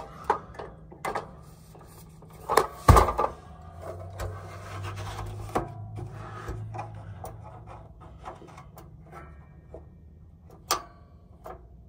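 Knocks, clicks and rubbing as a propane Buddy Heater is handled and lit. There is a louder knock about three seconds in, a low steady hum for a few seconds after it, and a sharp click near the end.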